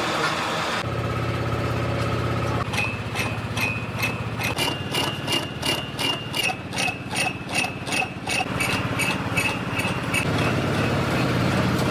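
Shop machine motor running steadily with a low hum, joined through the middle by a regular ticking, about three ticks a second, with a high ringing tone.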